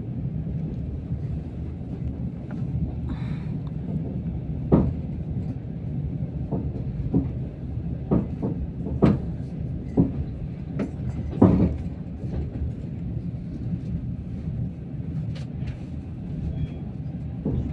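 Passenger train running: a steady low rumble of the moving carriage with a scatter of sharp, irregular knocks and clacks from the wheels and running gear, bunched in the middle, the loudest about five and eleven and a half seconds in.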